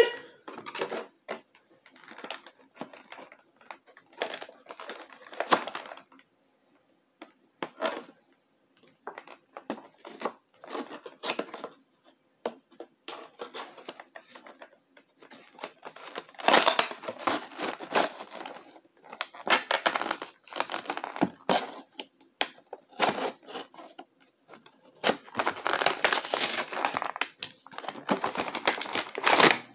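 An action figure's cardboard-and-plastic blister packaging being torn open and handled, in irregular bursts of tearing, crinkling and cracking. It grows busier past the middle and again near the end.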